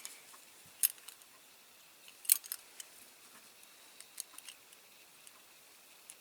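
A few sharp, light clicks and taps from small parts and tools being handled on a workbench, the loudest about two seconds in.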